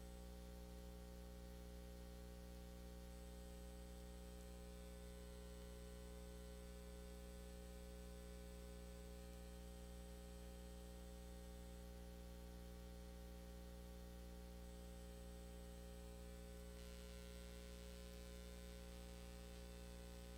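Near silence: a steady low electrical hum under faint hiss, the hiss growing slightly louder near the end.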